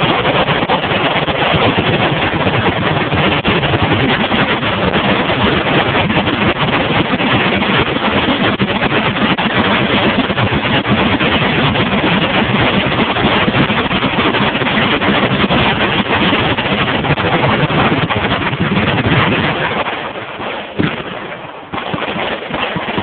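Many automatic weapons firing at once in a continuous, dense rattle of gunfire, loud enough to overload the phone's microphone. About twenty seconds in it eases off into separate, scattered shots.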